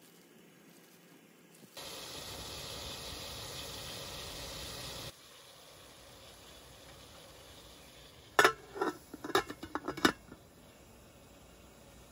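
A steady hiss lasting about three seconds. Then, about eight seconds in, a quick run of loud, sharp metal clanks as the aluminium lid goes onto the pot holding the stainless steamer basket.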